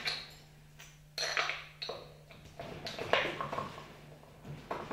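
A handful of light metal clinks and knocks as a bolt, washers and a small wheel are handled and fitted against a wooden frame, over a steady low hum.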